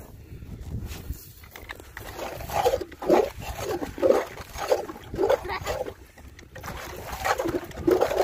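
Hand-cranked ice auger drilling through river ice. After it breaks through, about two seconds in, it churns the water and slush welling up in the hole in a rhythmic sloshing, roughly every half second to second.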